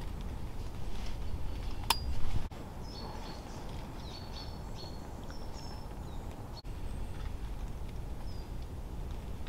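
Woodland ambience: small birds calling with short high chirps over a steady low rumble of wind. A sharp click and a brief louder rush come about two seconds in.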